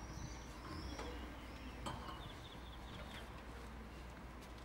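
Small birds chirping: short high calls, with a quick run of repeated notes about two seconds in, over a low steady background hum.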